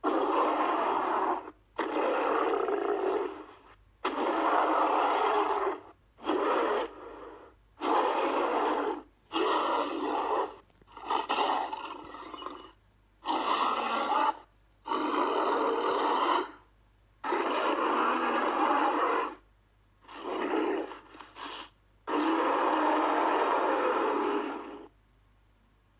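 King Kong film monster roars and grunts: about a dozen separate calls, each lasting one to two seconds, with short silent gaps between them.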